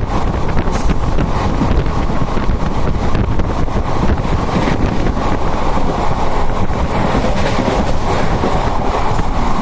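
A moving passenger train heard from on board: a steady loud rumble of wheels on the track with faint irregular clicks, and wind buffeting the microphone.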